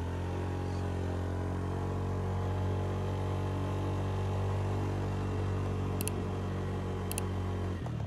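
Motorbike engine running steadily at an even pitch.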